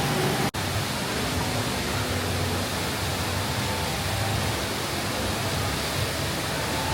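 Steady rushing of the Rain Vortex, the tall indoor waterfall at Jewel Changi Airport, with a momentary break about half a second in.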